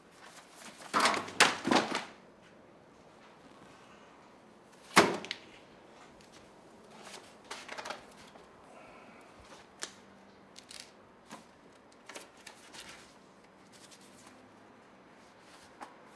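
Books and boxes being handled: a cluster of rustling knocks about a second in, one sharp knock as something is set down about five seconds in, then scattered lighter clicks and rustles.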